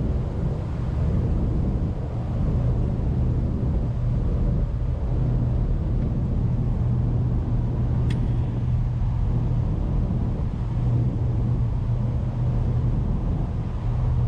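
Steady low engine drone with a constant hum and rumble, mixed with wind noise; a single sharp click about eight seconds in.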